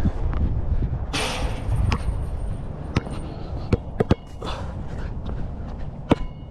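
A basketball goes through a metal chain net about a second in, the chains clattering and jingling briefly with a high metallic ring, and the ball then bounces on the court several times.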